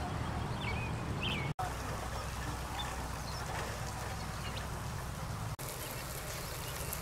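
Birds chirping in short hooked calls over a steady low rumble, with the sound cutting out briefly twice. In the last second or so a steady hiss joins in, from water spraying out of a broken pipe.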